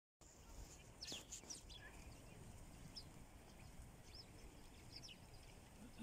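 Sparrows chirping faintly from a flock in a bush, short scattered chirps with a small cluster about a second in, over a low steady background hum.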